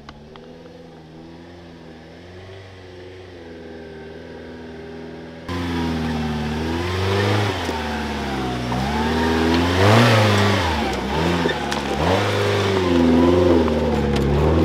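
Suzuki Samurai 4x4's engine revving up and down as the truck crawls up a loose rocky climb. It is faint and distant for the first five seconds or so, then suddenly close and loud, the revs rising and falling over and over.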